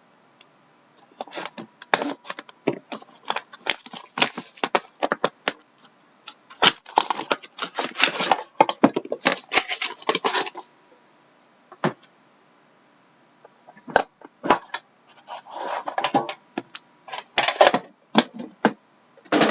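A sealed trading-card box and its packaging being torn open and handled: paper and plastic wrapping crinkling and cardboard clicking in dense runs, in several bursts with short pauses between.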